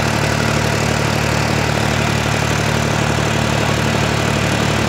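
An engine running steadily at idle: an even low hum under a wash of noise.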